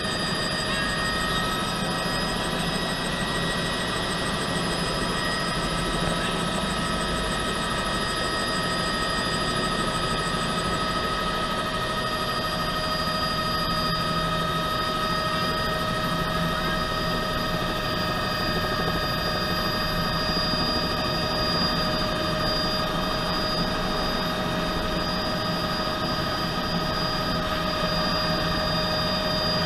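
Bell 206B3 JetRanger helicopter running, heard from inside the cabin: a steady, high turbine whine over the rotor's rumble.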